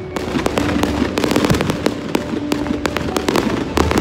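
Aerial fireworks display going off: a dense, rapid run of crackling pops and bangs as shells and crackling stars burst overhead.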